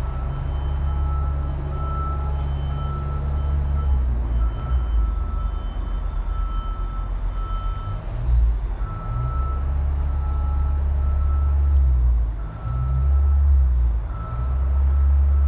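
Heavy truck's diesel engine idling with a steady low rumble, while an electronic beep repeats about twice a second over it.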